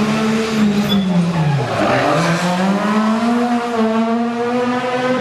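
Rally car's engine passing close by. The revs drop as the driver lifts off about a second and a half in, then climb steadily as the car accelerates away, holding a high note near the end.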